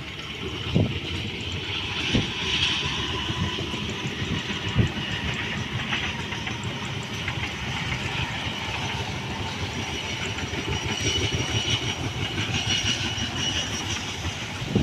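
Passenger train rolling past: a steady rumble of wheels on rail with a few single knocks in the first five seconds and a thin high wheel squeal in the second half.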